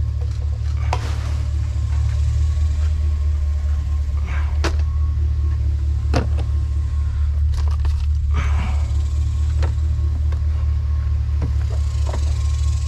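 Steady low rumble of an idling vehicle engine, with scattered knocks and clatters over it.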